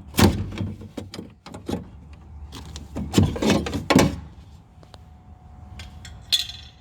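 The metal window-run guide inside a Honda Civic front door being pulled away and slid down, giving a series of irregular clunks and scrapes of metal against the door shell. The clunks are busiest about three to four seconds in, and there is a short sharp scrape near the end.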